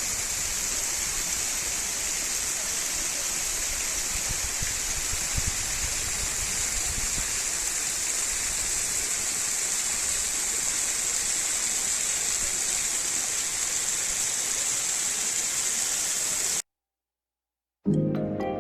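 Waterfall splashing down, a steady rushing hiss. It cuts off suddenly about sixteen and a half seconds in.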